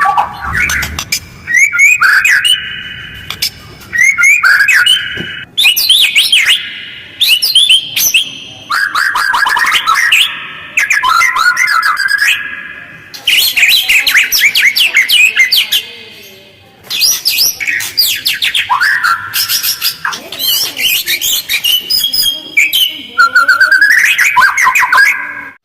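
White-rumped shama (murai batu) singing loud, rapid phrases of whistles and harsh chatter, one burst after another with short pauses between them.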